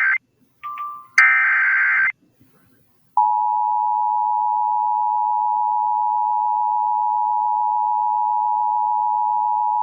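Emergency Alert System alert: a few short buzzy data bursts of the SAME header, then a brief pause, then about three seconds in the steady two-tone EAS attention signal starts and holds unbroken.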